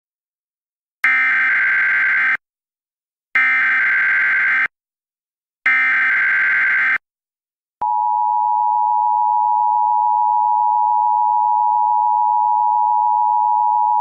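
Emergency Alert System header: three short, identical bursts of SAME digital data tones, then, about eight seconds in, the steady two-tone EAS attention signal starts and holds.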